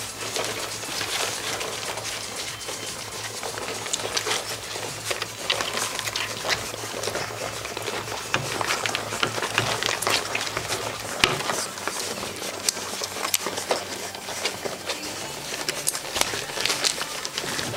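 Golden retriever puppies suckling from their mother, a busy run of small wet smacking and clicking sounds.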